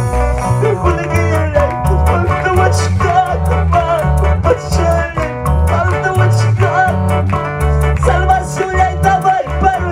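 Live worship band music: electric guitar, electric bass and keyboards over a steady beat, with a pulsing bass line and a wavering lead melody.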